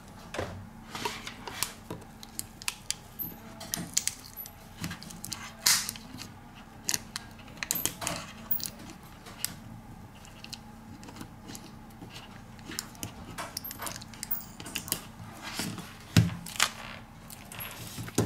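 Irregular light clicks, taps and scrapes of small hand tools working on an opened smartphone, over a faint steady hum.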